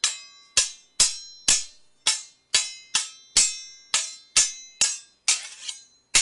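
Sword blades clashing in a steady series of sharp metallic strikes, about two a second, each ringing briefly with high tones. One strike about five seconds in is rougher and drawn out, more of a grinding scrape.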